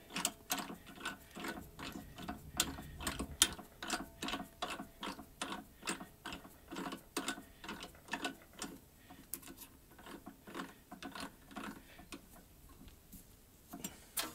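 Pillar drill press running, a regular mechanical ticking about three times a second over a faint hum, fading out near the end.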